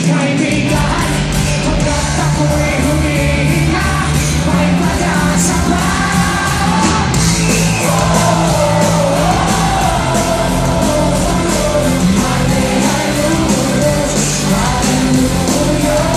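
Live rock band playing with a male lead singer singing into a microphone, with guitar, keyboard and drums behind him.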